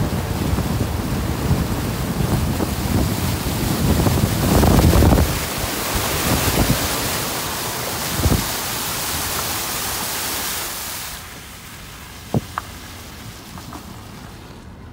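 Flood water churning and splashing against the wheels and underbody of a Renault Kangoo Z.E. electric van as it drives through knee-deep water. The rushing gives way sharply about eleven seconds in as the van comes out of the water, followed by two short sharp clicks.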